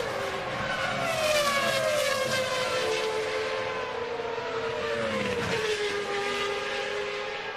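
Several Formula One cars' engines at high revs, overlapping, their pitch sliding down.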